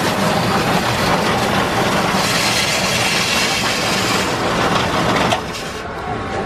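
Ice-shaving machine grinding a block of ice into snow, a dense rasping noise over a low hum. It stops about five seconds in.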